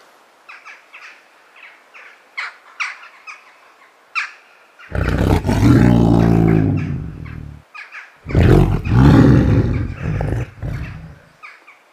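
A tiger roars twice: once about five seconds in and again about eight seconds in, each roar lasting a few seconds. Faint short bird chirps come before it.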